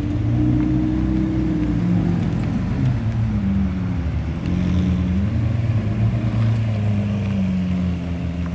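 A vehicle engine running steadily, its note dipping and rising a few times.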